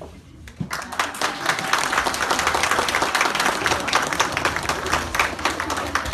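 Audience clapping hands in applause, starting about a second in.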